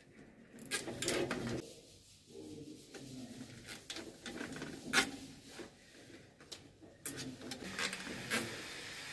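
Bundled Ethernet network cables rubbing and scraping against a metal patch panel as they are handled and routed into it by hand. Scattered small clicks run through it, with one sharp click about five seconds in.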